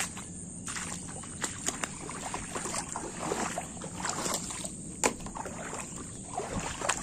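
Footsteps wading through shallow floodwater, the water splashing and sloshing irregularly with each step, with a sharp click about five seconds in.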